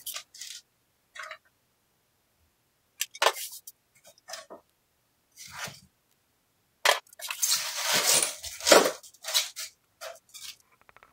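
Packing paper and plastic wrap rustling and crumpling as parts of a new horizontal metal-cutting band saw are unwrapped and lifted from their box, with short knocks of the parts being handled and set down. The longest, loudest stretch of crinkling comes about seven seconds in.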